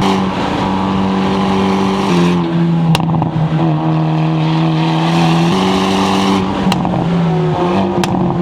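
Hyundai Elantra N's turbocharged 2.0-litre four-cylinder engine and exhaust running hard on a race track. Its note holds steady pitches that step up or down a few times, with three sharp cracks along the way.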